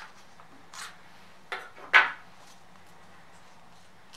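Cut cardstock card being handled and lifted off a plastic Cricut card mat: a few short rustles and scrapes, the loudest about two seconds in.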